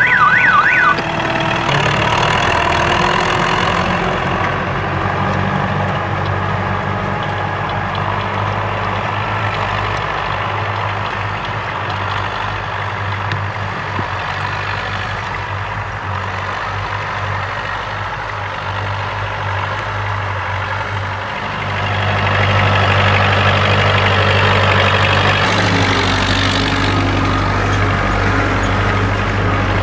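UTB 650 tractor's four-cylinder diesel engine running steadily under load while pulling a disc harrow through ploughed soil, getting louder about 22 seconds in as the tractor comes close. A warbling alarm-like tone sounds at the start and cuts off about a second in.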